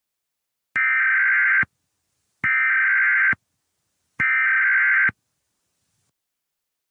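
Emergency Alert System SAME header: three bursts of harsh, buzzing digital data tones, each just under a second long and about 1.7 s apart. The bursts signal the start of a new alert.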